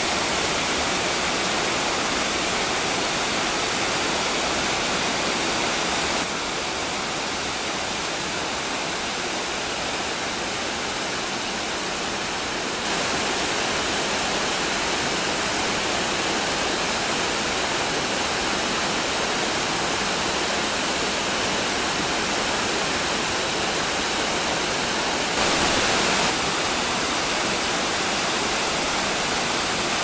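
Waterfall and the cascading stream below it: a steady rush of falling water over rocks. It is a little quieter for several seconds early on and briefly louder near the end.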